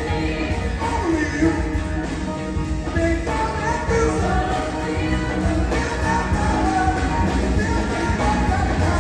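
A pop-rock song playing: a sung vocal over a band with a steady, heavy low beat.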